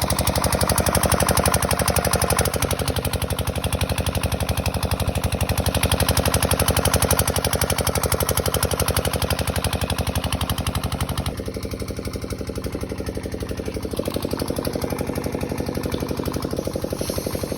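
A machine running with a fast, even mechanical pulsing, like rapid knocking; its tone changes about two-thirds of the way through.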